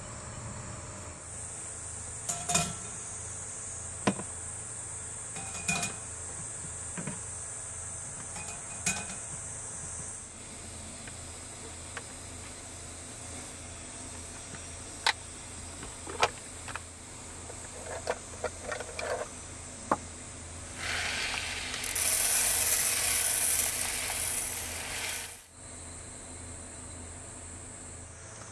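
Cooking gear handled on a countertop: sharp clicks and knocks scattered throughout, as a small rice cooker and a tin can are picked up and set down. A loud rushing noise lasts about four seconds near the end. Throughout, a steady high insect chorus runs underneath.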